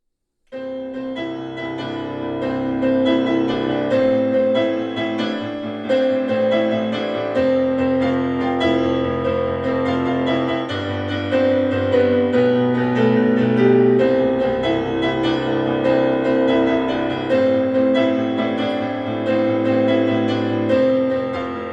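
Intro music led by piano or electric keyboard, with sustained chords changing every couple of seconds over a bass line.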